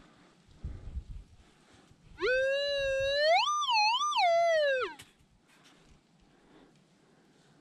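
Metal detector target tone signalling buried metal, here most likely a piece of aluminium can: a single electronic note nearly three seconds long that rises, swoops up twice to a higher pitch and falls away.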